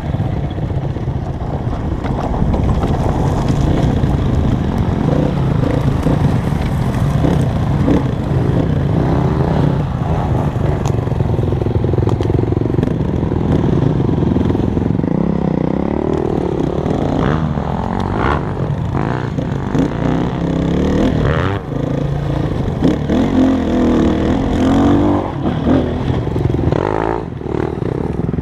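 Dirt bike engine running under changing throttle, its pitch rising and falling as it revs, with a few sharp knocks and clatter in the second half.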